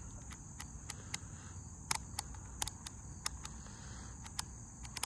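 Steady high-pitched insect buzz, with a dozen or so irregular sharp clicks from the plastic clamp meter being handled, its dial and buttons under the thumbs. The loudest click comes about two seconds in.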